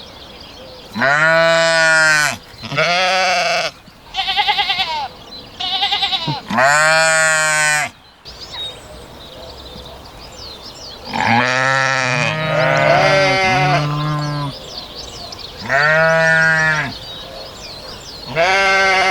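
A flock of sheep bleating: about ten loud, wavering baas of about a second each, some higher and some lower, a few overlapping. Birds chirp faintly behind the later calls.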